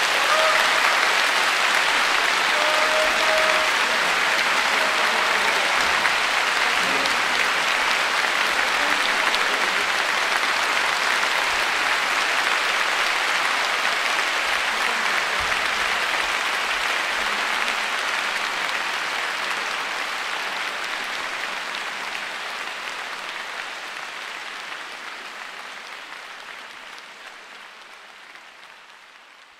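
Audience applauding at the end of a live orchestral recording, steady at first and then fading out over the last several seconds.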